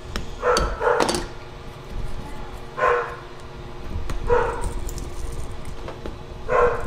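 A dog barking, about five short barks spaced irregularly. Faint clicks of tools prying at a small plastic camera case run underneath.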